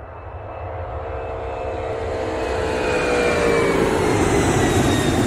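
Jet aircraft passing by: the engine roar builds steadily, and whining tones in it slide down in pitch as it comes closer.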